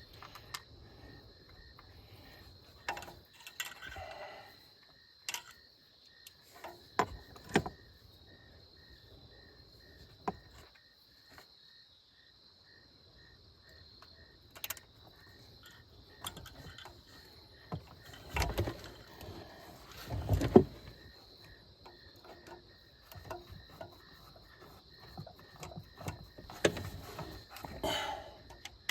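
Scattered clicks, taps and knocks of a screwdriver and metal parts being handled while a cable bracket is put together, with two louder knocks about two-thirds of the way through. Crickets chirp steadily underneath.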